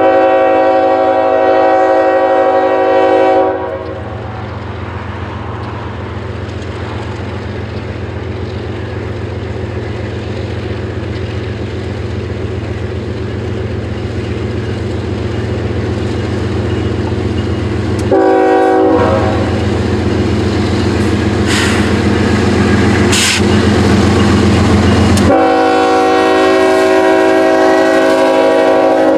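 Freight train led by a CSX GE ES44AH diesel locomotive sounding its multi-note air horn: a long blast at the start, a short blast past the halfway mark, and a long blast near the end. Underneath, the steady engine drone and rolling train grow louder as it approaches and passes.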